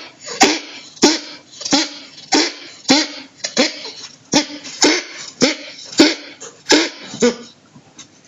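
Pet animal in a coughing fit: a rapid, regular run of harsh coughs, a little under two a second, that stops about a second before the end.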